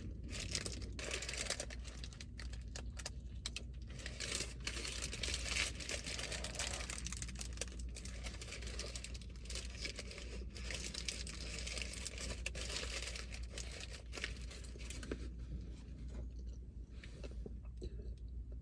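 Close-up eating of a McDonald's breakfast: chewing, with crinkling and tearing of paper food wrappers, busy for about fifteen seconds and then quieter near the end.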